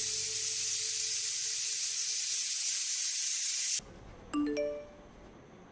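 Steady hiss with faint music beneath it, cutting off suddenly nearly four seconds in. Three short chime notes follow, each higher than the last.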